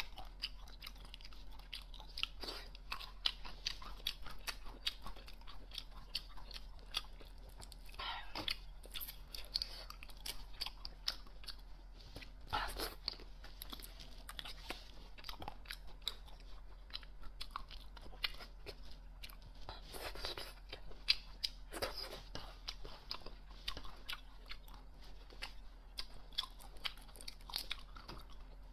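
Close-miked eating of raw marinated shrimp: chewing and biting with many short clicks and crackles, while the shrimp are handled and peeled.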